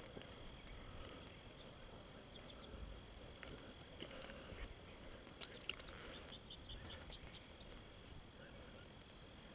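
Faint outdoor ambience: a low rumble with a steady thin high tone and a few faint short chirps.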